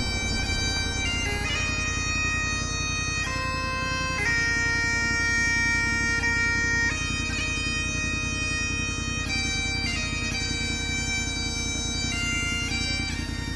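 Bagpipes playing a slow tune of long held notes over a steady drone.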